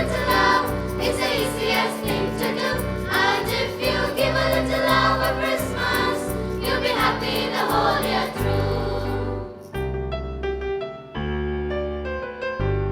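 A choir sings a Tamil Christian Christmas song over keyboard and bass backing with a steady beat. The voices stop about nine and a half seconds in, and the keyboard plays on alone.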